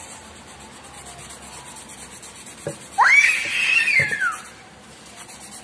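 A toddler's high squeal about three seconds in, lasting over a second, rising quickly, holding, then falling in pitch. It sits over the fast, steady scratching of a felt-tip marker colouring in cardboard.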